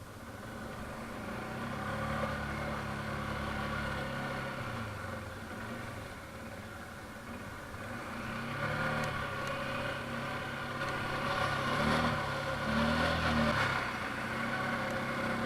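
ATV engine revving under throttle, building up, easing off for a couple of seconds, then climbing again with several rises and falls in pitch.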